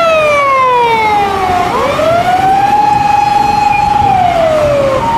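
Electronic wail siren of an emergency response car, sliding slowly in pitch: it falls over about two seconds, jumps back up and climbs to a held high note, then falls again near the end.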